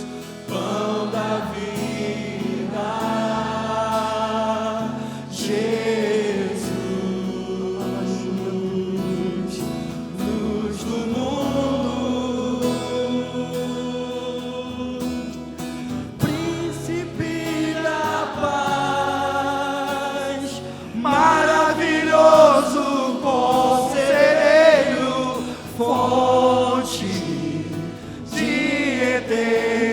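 Gospel worship music with singing voices holding long, wavering notes over a sustained accompaniment, swelling louder past the middle.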